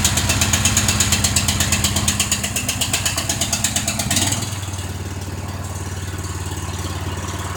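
Snowblower engine running just after starting, with a fast rattle; about four seconds in it drops to a lower, quieter idle.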